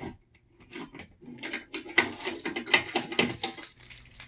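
Keys jangling and a key working the lock of an electrical panel: a run of quick small metallic clicks and rattles.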